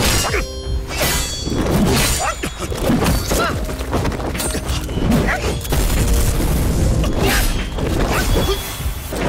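Fight-scene sound effects: a rapid run of hits, metallic weapon clashes and booms over background music.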